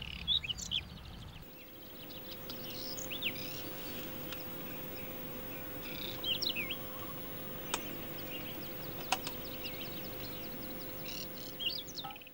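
Male whinchat singing: about four short, rapid verses of a few notes each, separated by clear pauses of two to four seconds. This stop-start verse structure is what marks the whinchat's song. A faint steady hum runs underneath from about a second and a half in.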